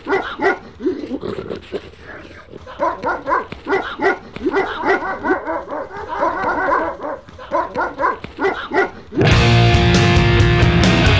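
Dogs barking in quick runs of short barks and yelps. About nine seconds in, loud guitar rock music starts abruptly.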